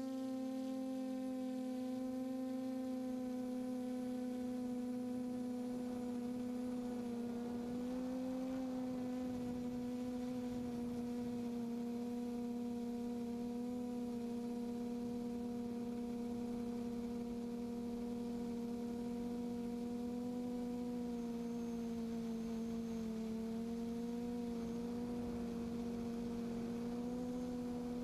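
QAV540G quadcopter's motors and propellers humming steadily, picked up by its onboard camera: one even tone with a few overtones, its pitch wavering slightly with throttle.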